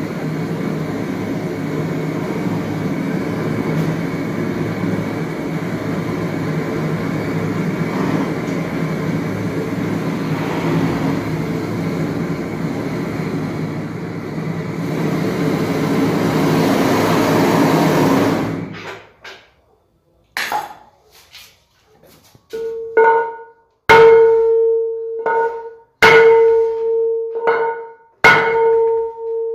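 Gas torch flame hissing steadily as it heats a dented alloy wheel rim to straighten it, cutting off suddenly about two-thirds of the way through. Then the rim is struck with a hammer about once a second, each blow leaving the wheel ringing with a clear metallic tone.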